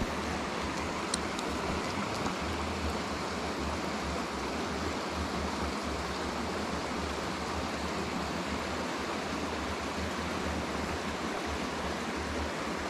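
Steady rushing of a shallow river flowing over rocks, a continuous even wash of water noise.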